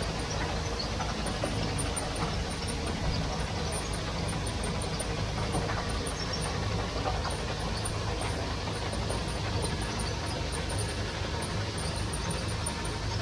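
Wheat-cleaning shaking sieve running steadily: its mechanical drive hums low and even, while wheat kernels slide and patter across the wire-mesh screens.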